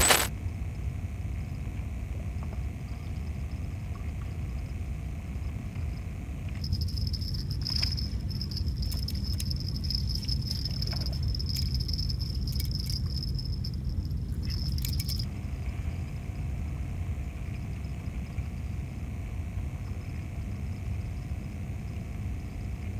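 Steady wind rumble on the microphone. From about seven seconds in to about fifteen, a spinning reel on a surf rod whirs with a steady high whine and scattered clicks as it is wound, then stops abruptly.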